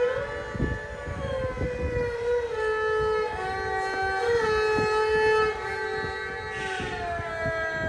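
Background music of long held notes with many overtones, each gliding slowly to a new pitch, over an irregular low crackle.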